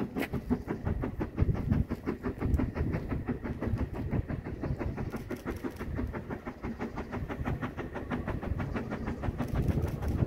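Saxon VI K narrow-gauge steam locomotive working a train under power, its exhaust beating in a fast, even chuff of about six beats a second over a low rumble.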